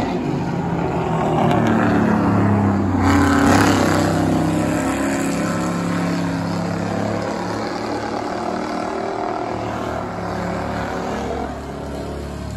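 Several Crown Victoria-type stock cars' V8 engines running at race speed, the pitch bending as the cars pass. They are loudest about three seconds in, as the cars go by closest, then settle into a steadier, more distant drone as they run down the far side of the track.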